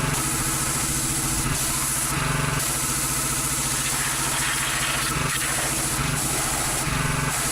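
Gas-engine pressure washer running while it sprays, a steady engine note under a hiss of water. The engine note and the spray hiss shift every second or two.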